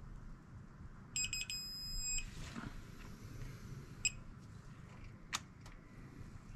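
A digital torque wrench beeps on a cylinder head bolt: a few quick beeps, then a longer steady beep about a second in, signalling that the set 45-degree angle has been reached. There is another short beep around four seconds in, and a couple of light metallic clicks as the socket goes onto the next bolt.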